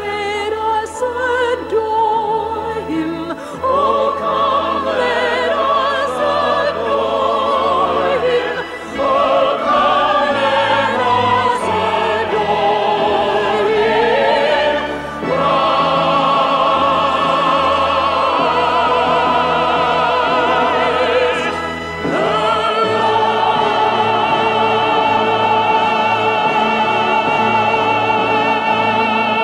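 Operatic singing with wide vibrato, several voices over an orchestra, moving through a phrase and ending on a long held chord about two thirds of the way in.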